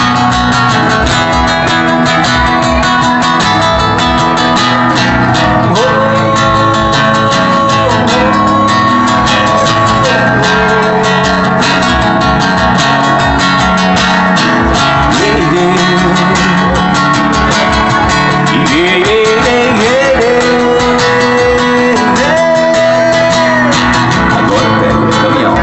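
Guitar instrumental break: plucked and strummed guitar accompaniment under a lead melody of long held notes that slide in pitch.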